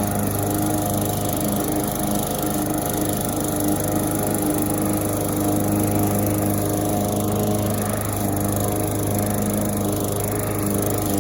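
Brute gas walk-behind lawn mower running steadily under load while cutting grass. The engine is running normally, its oil drained back to the full line after being overfilled.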